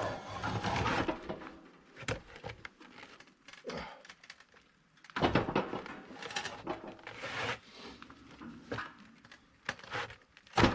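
Scattered knocks, clicks and scraping of hands-on installation work in a small cabin room, with the loudest stretch of scraping about halfway through.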